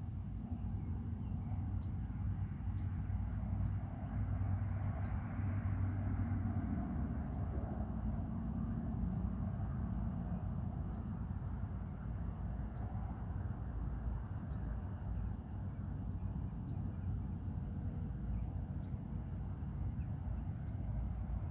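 Steady low background rumble, with brief high-pitched ticks or chirps scattered throughout.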